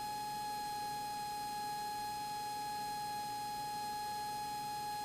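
A steady high-pitched whine with fainter higher overtones, holding one pitch without rising or falling.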